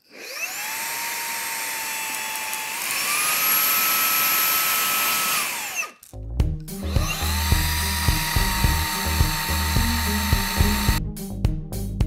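Xiaomi Mijia handheld mini vacuum cleaner's motor switched on, spinning up to a steady high whine. About three seconds in it steps up to its stronger second power level, then winds down and stops about six seconds in. Background music with a beat then starts, with the vacuum running again at its lower level under it until about eleven seconds.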